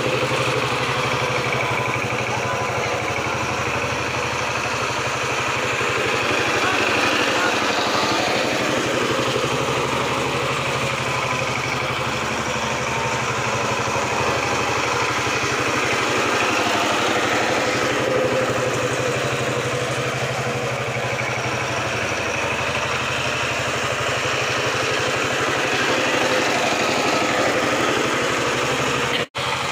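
KAMCO two-wheel power tiller's single-cylinder diesel engine running steadily as the tiller drives along. The sound breaks off for an instant near the end.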